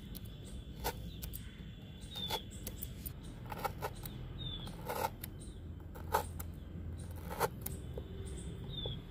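Steel fork pricking pieces of raw ash gourd (petha) on a bamboo cutting board: a sharp click each time the tines go through the flesh and strike the board, at an uneven pace of about one a second.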